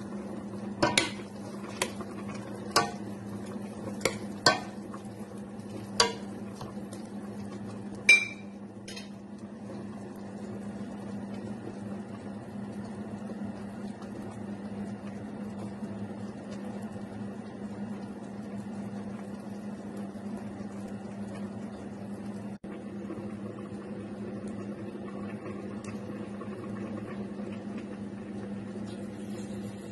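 A metal spoon clinking against a steel cooking pot while stirring soup, about eight strikes in the first eight seconds, the last one ringing briefly. A steady low hum runs underneath.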